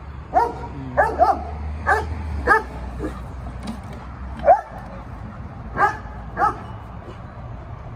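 Young German Shepherd barking over a wall in about nine short, sharp barks, some in quick pairs: territorial barking while patrolling the yard.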